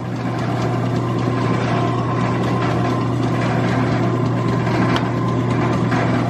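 Ammco 4000 disc and drum brake lathe running steadily with its feed engaged: an even motor hum with a constant low tone.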